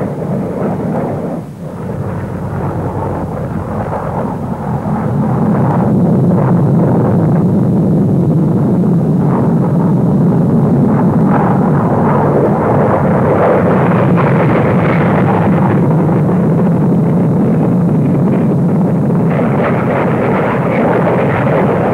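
Jet roar of a large formation of RAF Hawker Hunter fighters flying over, a deep rumble that swells about five seconds in and then holds steady.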